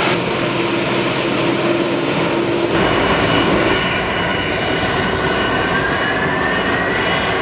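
Boeing 747-400 jet engines running at high power, a loud, steady roar with a whine that slowly rises in pitch in the second half.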